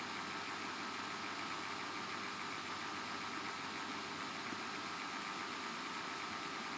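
Steady background hum and hiss with a thin, high, steady whine: room tone, with no speech.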